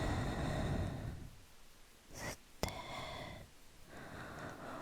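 Slow, close-miked human breathing: an open-mouthed exhale fades out about a second in, followed by a short inhale, a sharp little click, and two more slow breaths.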